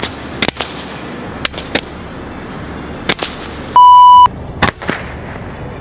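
Handheld Roman candle firing about six sharp pops at irregular intervals. About four seconds in, a loud electronic censor bleep lasts about half a second.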